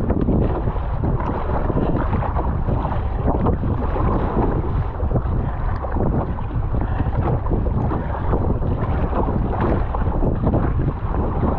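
Strong wind buffeting the microphone over water sloshing and splashing around a plastic Epic V7 surfski paddled through choppy sea.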